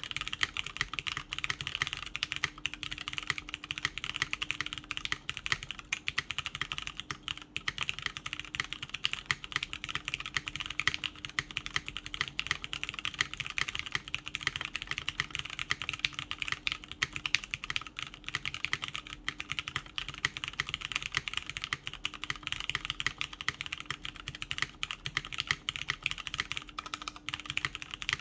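Continuous typing on a Merisi 500c/m mechanical keyboard with lubed Cherry MX Brown tactile switches in a top-mount aluminium plate: a steady, unbroken stream of keystroke clacks.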